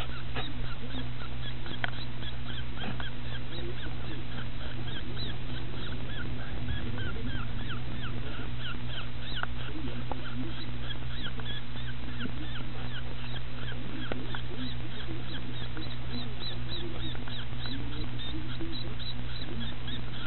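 Newborn fisher kit squeaking continuously in quick, short, high-pitched peeps, several a second, over a steady low hum.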